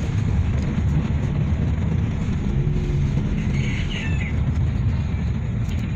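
Steady low rumble of road and engine noise inside a moving car's cabin. A brief high chirp sounds about four seconds in.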